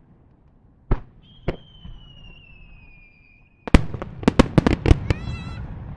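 Fireworks: two sharp bangs, then a whistling firework with a long whistle slowly falling in pitch for about two seconds, then a rapid volley of sharp reports.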